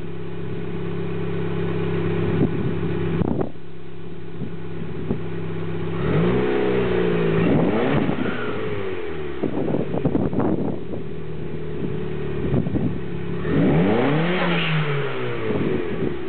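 Turbocharged Chrysler 420A 2.0-litre four-cylinder with 272 cams and a catless 3-inch exhaust, idling and then revved. A long rev rises and falls about six seconds in, a few short blips come around ten seconds, and another rev rises and falls near the end.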